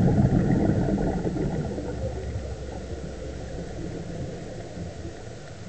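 Muffled underwater rumbling picked up by a camera held underwater, loudest in the first second or so, then settling to a steadier, lower rumble.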